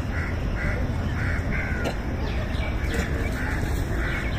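Short harsh animal calls repeating in quick succession, two to three a second, over a steady low outdoor rumble.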